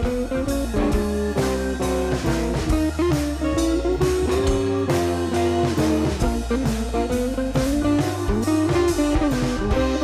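Background music: guitar-led instrumental with a steady drum beat.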